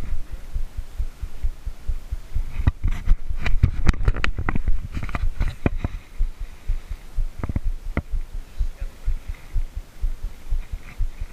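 Low, uneven rumbling noise on the camera microphone, with a burst of sharp clicks and rustles about three to six seconds in and a couple more around eight seconds.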